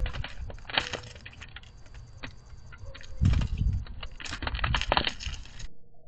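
Doves pecking seed from a cardboard feeder box: quick, irregular beak taps and clicks, with a low rushing thump about three seconds in. Near the end the sound cuts off abruptly, leaving a faint steady tone.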